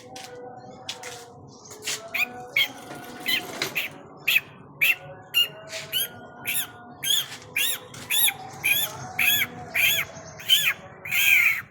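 A bird squawking over and over: short high calls that rise and fall in pitch, about two a second, growing louder toward the end, where the last call is the longest and loudest.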